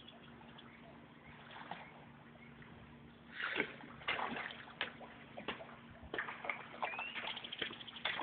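Water splashing and sloshing in a run of irregular splashes that starts about three seconds in, after a quiet stretch with a faint steady hum.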